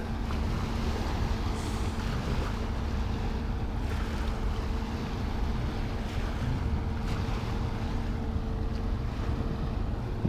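Steady low rumble of wind on the microphone, with a faint even hum under it.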